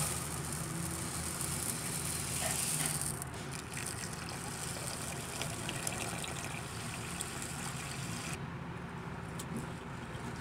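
Dry red rice grains poured into a metal pot with a hissing rattle, then tap water running into the pot over the rice from about three seconds in until it is shut off about eight seconds in; near the end a hand swishes the rice in the water.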